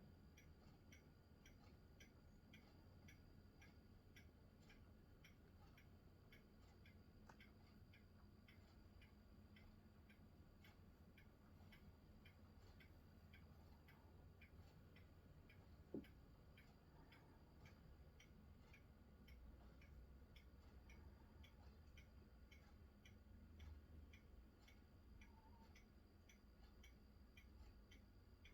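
Near silence with a faint, regular ticking about twice a second over a faint low rumble, and a single sharp click about halfway through.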